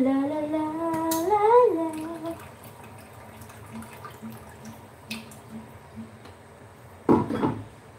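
A woman humming a held note for about two seconds, her pitch gliding up just before she stops. About seven seconds in comes a short, loud burst of noise, like a clatter.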